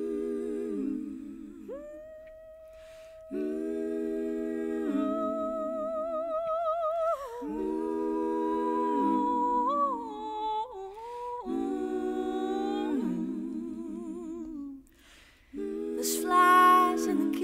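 Four women's voices singing wordless a cappella harmony: sustained hummed chords with vibrato, one voice holding a higher line above the others, in phrases of a few seconds with short breaks between them. The loudest chord comes near the end.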